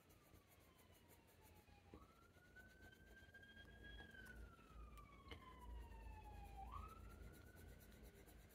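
Faint, distant emergency-vehicle siren wailing: a single tone that jumps up, climbs slowly, then glides slowly down over a couple of seconds, in cycles of about four to five seconds, over a low rumble.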